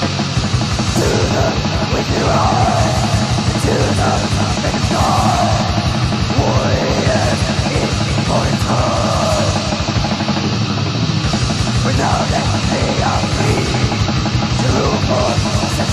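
Heavy metal song from a raw-sounding demo recording: fast, steady drumming under distorted electric guitars, loud and unbroken throughout.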